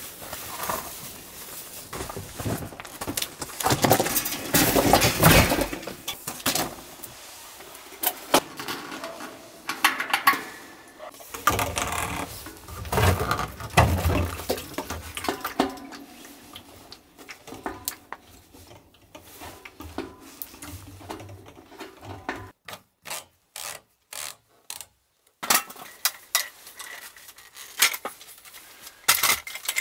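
A run of handling sounds: canvas inner-tent fabric rustling as it is hung and fastened, then a siphon pump and hose knocking and scraping while kerosene is pumped from a plastic fuel can into a heater. Near the end come sharp clicks and metallic clinks as a folding metal stand's legs are opened out.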